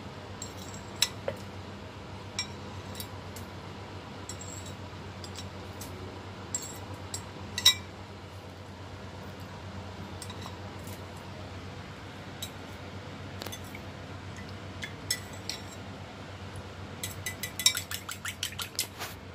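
Metal fork clinking against a ceramic bowl of beaten egg and water: scattered light taps, then a quick run of clinks near the end as the mixture is stirred fast.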